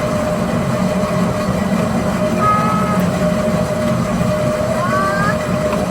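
Small ride vehicle's motor running steadily: a low rumble with a steady whine over it.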